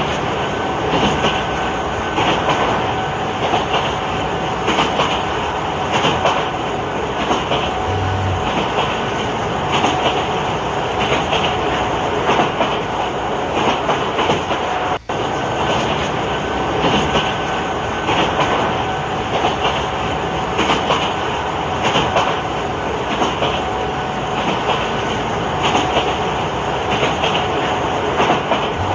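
Train running along the track, with a continuous rumble and a regular clatter of wheels over the rails. There is a brief break about halfway through.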